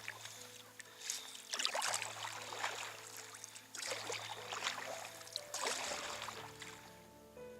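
Kayak paddle strokes in the water: a splashy swish about every two seconds, fading out after about six seconds as soft background music comes up.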